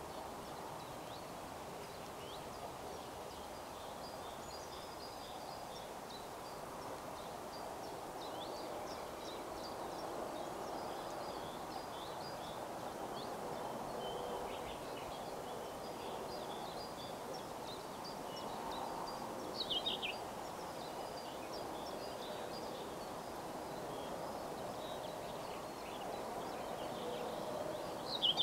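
Small birds chirping on and off, with a louder burst of calls about twenty seconds in and again at the end, over a steady, even background rush.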